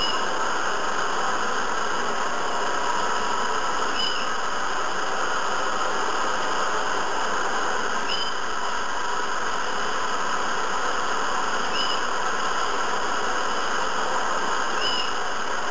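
Hair dryer running with a steady, even blowing hiss, with a faint short chirp about every four seconds.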